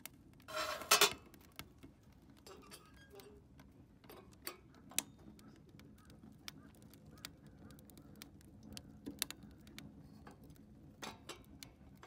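Wood fire crackling inside a steel rocket stove: scattered sharp clicks and pops at irregular intervals, with one louder, rougher sound about half a second in.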